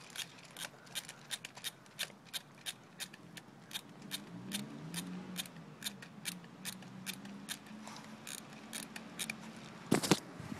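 Light, evenly spaced mechanical clicks, about three a second, from handling the parts of an electric airsoft rifle, then a short loud burst of shots from the rifle near the end.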